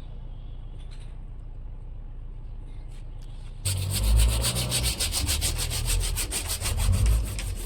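Fast, even sawing strokes begin about three and a half seconds in and go on steadily, like a hand saw cutting through plastic plumbing pipe. A low steady hum sits underneath.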